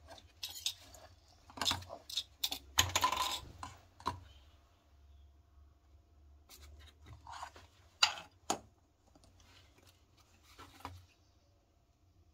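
Scattered clicks and clatter of small hard parts being handled, with a short scraping rustle about three seconds in and two sharp clicks about eight seconds in.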